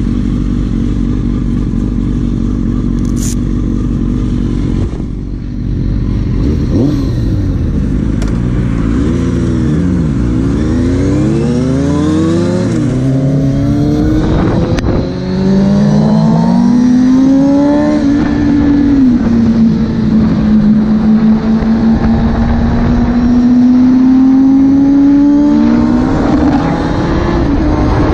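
Sport motorcycle engine idling, then pulling away and revving up through the gears, its pitch dropping at each shift, before settling into a steady cruise with the note slowly climbing.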